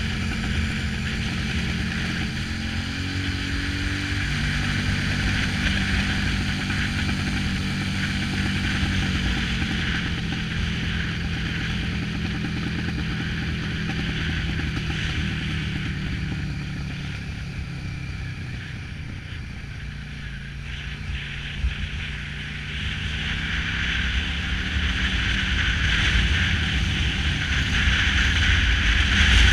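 Cruiser-style motorcycle engine running at road speed, with wind rushing over the microphone. The engine's pitch shifts a few seconds in, and the wind noise grows louder near the end.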